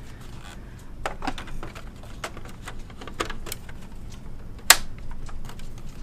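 Black plastic airflow baffles being fitted into an HP Z800 workstation case: irregular plastic clicks and knocks as the parts are pressed and seated, with one loud sharp snap about five seconds in.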